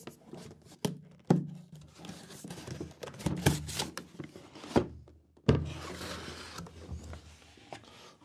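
Cardboard box being handled and opened by hand: rustling and scraping of cardboard broken by several sharp knocks and taps, a loud one about five and a half seconds in.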